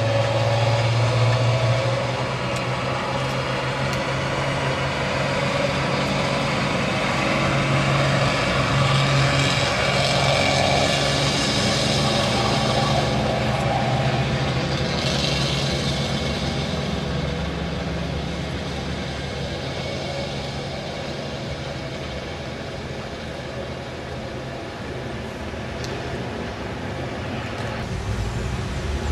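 A narrow-gauge steam train double-headed by two steam tank locomotives, working steadily. The sound fades gradually as the train draws away.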